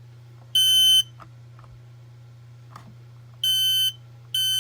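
Smoke alarm's piezo sounder beeping during a test: loud, high-pitched half-second beeps, one about half a second in, then after a pause two more in quick succession near the end, the start of the alarm's three-beep pattern.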